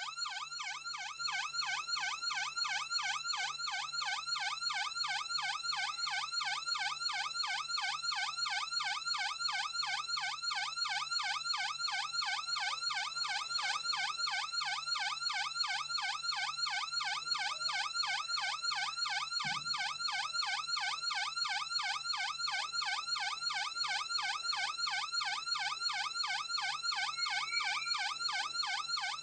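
Electronic police siren in fast yelp mode, its pitch sweeping up and down about three times a second without a break.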